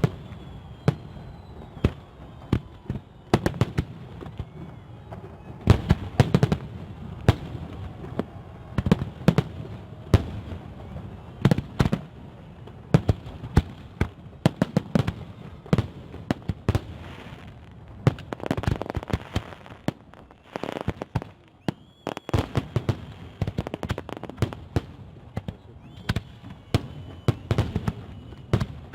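Fireworks display: many sharp bangs and pops going off in quick, irregular succession, some ringing on briefly after the blast.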